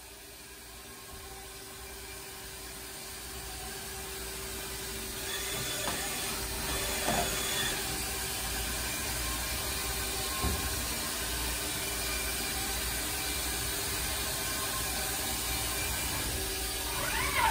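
Haas ST-45L CNC lathe running under power: a steady mechanical hum and hiss that grows louder over the first five seconds and then holds, with a few faint short squeaks.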